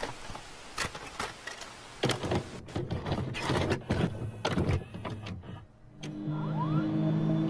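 Intro sound effects: a crackling hiss with irregular clicks and knocks, which drops away after about five and a half seconds, then a low steady drone with a couple of short rising whistles swelling in.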